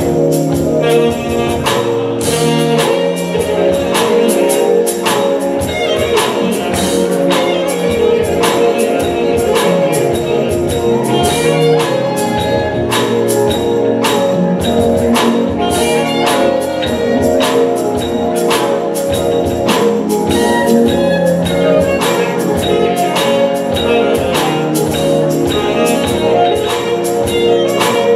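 Loud music with a steady beat, played for a dance routine.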